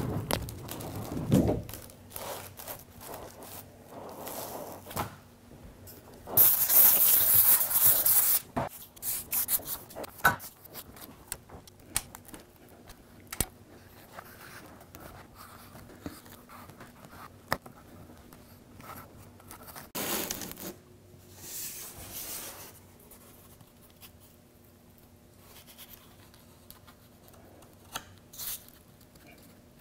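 A notched trowel scraping construction adhesive across a plywood panel, with rustling and scattered knocks as a large copper sheet and its substrate are handled. The sound comes in bursts; the loudest is a scrape of about two seconds starting about six seconds in, and there is a faint steady hum underneath.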